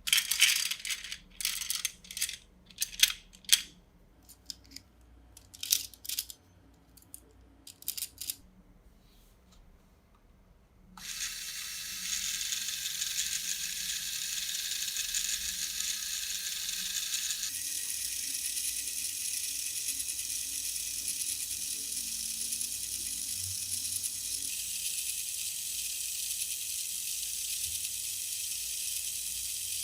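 Plastic Lego Technic parts clicking and rattling as they are handled, a string of sharp clicks. About eleven seconds in, a steady hiss starts and runs on.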